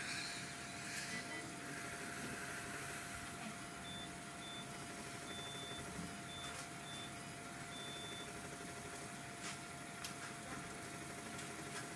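Steady hum of neonatal intensive care equipment with a faint continuous tone. From about four seconds in, a medical device gives high beeps in a short-short-long pattern, twice.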